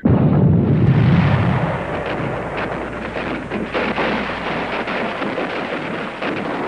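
Explosion sound effect: a sudden deep boom at the start, followed by a steady rumbling roar with scattered crackles.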